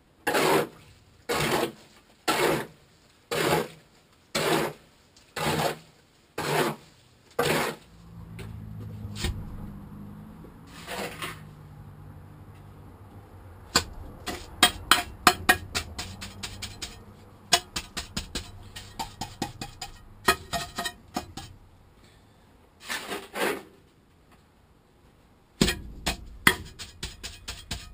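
Mortar being mixed with a hoe in a wheelbarrow: eight steady scraping strokes, about one a second. Then a trowel scraping and tapping on stones and wet mortar as it is laid in, with quick runs of sharp clicks.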